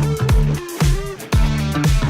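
Background music: an upbeat electronic dance track with a steady beat, a pulsing bass line and guitar, dropping out briefly about a second in.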